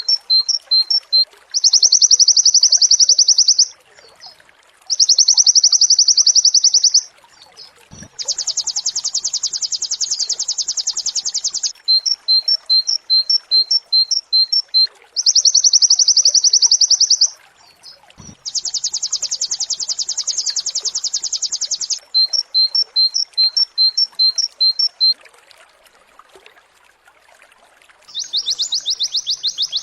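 White-eye (pleci) song from a looped tutor recording. Runs of short, sharp, high chirps alternate with long, very fast trills of two to four seconds each: the rapid 'nembak' bursts. There is a pause of a couple of seconds near the end before another trill starts.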